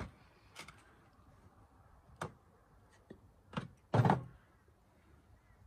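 Scattered handling knocks on a folding metal camp table as raw lamb shanks are set on a plastic cutting board and a glass flour jar is picked up. There are about five short knocks, the loudest a dull thump about four seconds in.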